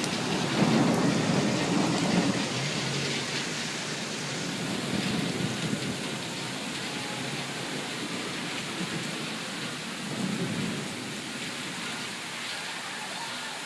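Heavy rain pouring down steadily, with low rumbles that swell near the start and again about ten seconds in.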